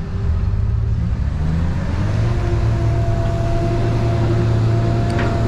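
Engine running steadily with a low hum, rising a little in pitch about two seconds in, when a higher steady whine joins it.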